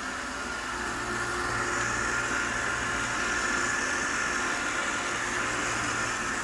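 Robot vacuum cleaner running: a steady whirring hiss from its suction fan with a low hum underneath, getting a little louder about a second and a half in.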